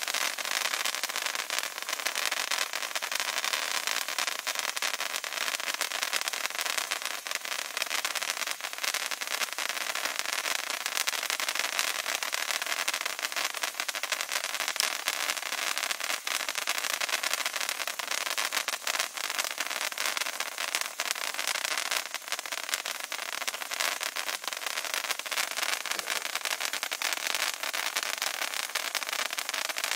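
A Monkey Mania MM-0804 Magic Wand handheld sparkler burning with a steady hiss and many small crackles from its bursting iron sparks.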